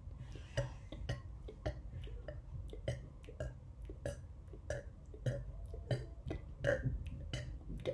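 A person burping over and over in quick succession, short separate burps about three a second, part of a run of around fifty made by gulping air; some of them are faint.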